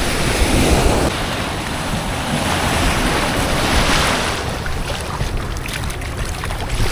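Ocean surf breaking and washing up the beach, swelling twice, with wind rumbling on the microphone.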